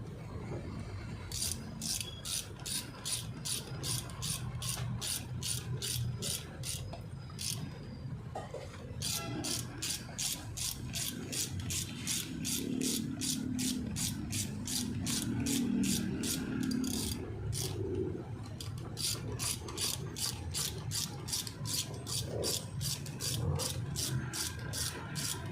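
Hand ratchet wrench clicking in long even runs of about three clicks a second, with short breaks, as bolts are run down during engine reassembly.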